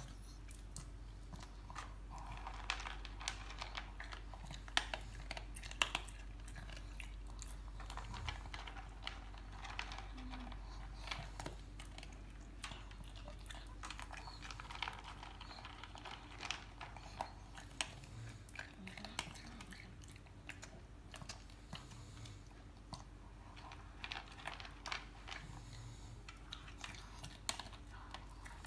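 A shih tzu eating hard dry kibble from a plastic bowl: a long run of crisp, irregular crunches and clicks.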